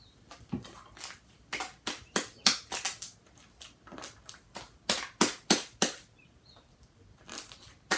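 Slime being worked by hand: a run of irregular sticky clicks and snaps, thickest in the middle and again near the end.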